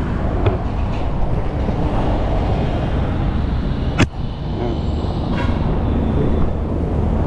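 Steady road traffic noise from a busy multi-lane highway: a low rumble and hiss of passing vehicles. A single sharp click comes about four seconds in.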